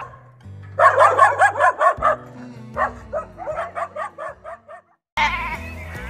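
A dog barking in two quick runs of short yaps, about six a second, over background music. Near the end a sheep starts bleating.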